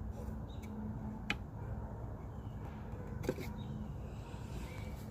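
Hand chisel paring into a pine 2x4 to test its freshly sharpened edge: a sharp tick about a second in and another about two seconds later, over a low rumble.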